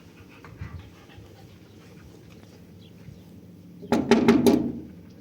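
A dog panting faintly, then a loud burst of four or five quick sharp sounds about four seconds in.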